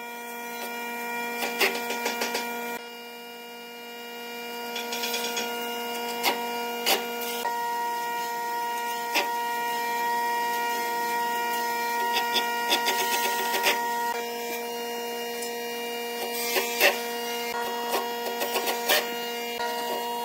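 Makita cordless impact driver running, driving screws into the corners of a hardwood frame. A steady hum of several tones runs under it, with scattered sharp clicks.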